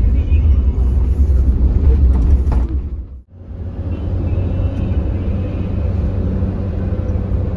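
Mercedes-Benz OH 1626 bus on the move, a loud low rumble of engine and road. It dips out abruptly a little over three seconds in, then returns as a steady rumble with a low hum.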